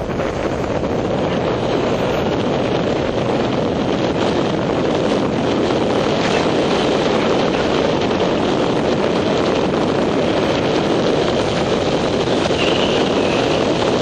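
Wind buffeting the microphone of a camera on a moving motorcycle, with the motorcycle's engine running underneath. The noise builds over the first second or so as speed picks up, then holds steady.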